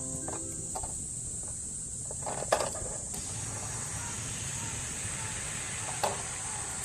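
Food sizzling in a copper pan over a campfire, the sizzle filling out about three seconds in, with a sharp knock just before that and another near the end.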